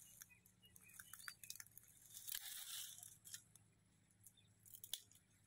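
Faint crackling and rustling of dry khejri twigs being broken by hand, with several short sharp snaps scattered through.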